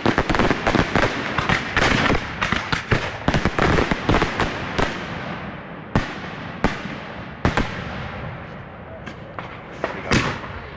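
Fireworks display: a fast barrage of bangs and crackling that thins out about halfway to a few single bangs with scattered crackle, then picks up again near the end.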